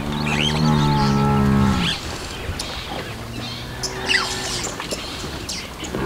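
Cape buffalo lowing: a long, low moo over the first two seconds, a shorter, lower one about three seconds in, and another starting near the end, with birds chirping over them.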